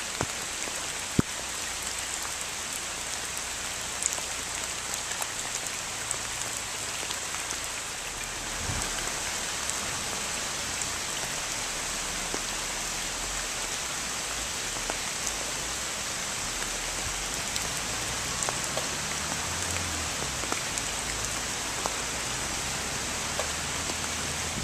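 Heavy rain falling steadily on a hard surface: an even hiss with scattered louder drop ticks, growing slightly louder about eight seconds in.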